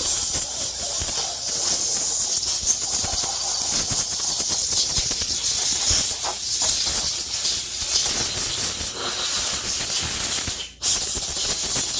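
Long, loud, steady hiss of a pressurised spray from a nozzle, such as compressed air or an aerosol cleaner, cutting out for a moment about eleven seconds in and then starting again.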